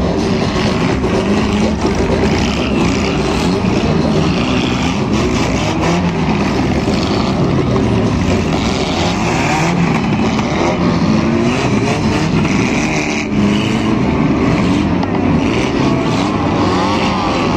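Several car engines revving at once during a no-rules derby race, their pitches rising and falling and overlapping.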